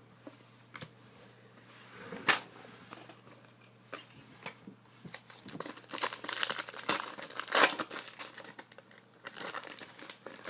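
Hockey trading card pack being torn open, its wrapper crinkling and the cards rustling as they are handled. Irregular crackles and rustles, sparse at first and busiest in the second half.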